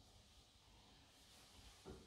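Near silence: room tone, with a faint brief sound just before the end.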